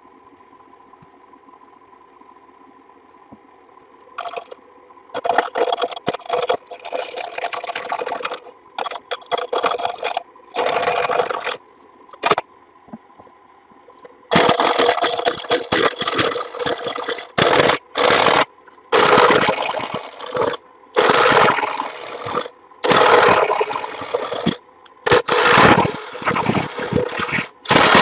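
A power tool running with a steady hum, then from about four seconds in cutting or grinding into the work in repeated loud bursts of one to three seconds each, with short pauses between.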